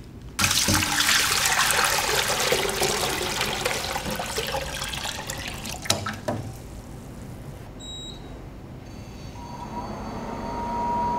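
Water pouring from a plastic measuring jug into a stainless steel stockpot, stopping after about six seconds. Then a couple of short beeps from the induction cooktop's control panel as it is switched on, and a steady high whine from the cooktop that starts near the end.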